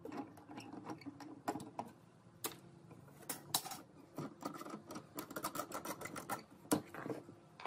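Irregular clicks, taps and creaks as a steel C-clamp is screwed tight against a bundle of thin bent wooden slats and the slats are pressed and handled.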